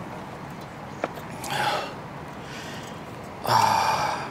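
A man's breathy effort sounds while stooping to grab a fish off the rocks: a short gasp-like exhale about a second and a half in, then a louder voiced grunt near the end. Under them runs a steady hiss of rain, with a single sharp click about a second in.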